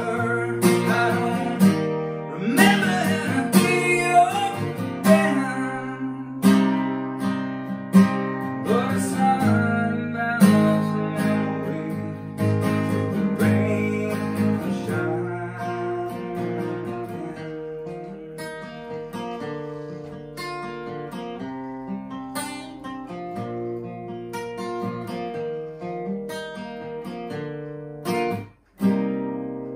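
Solo acoustic guitar, strummed and picked chords growing gradually softer, then a brief stop near the end followed by one final strummed chord left to ring.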